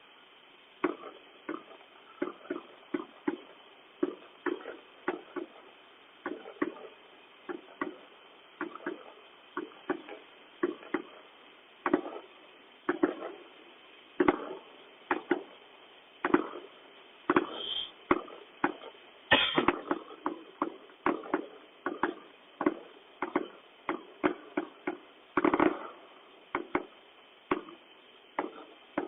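Fireworks going off: an irregular, continuous string of sharp bangs, about one or two a second, each dying away briefly.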